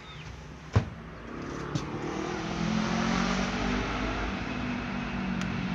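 A single sharp knock about a second in, then a passing motor vehicle: its engine hum and rushing road noise swell over the next couple of seconds and stay loud.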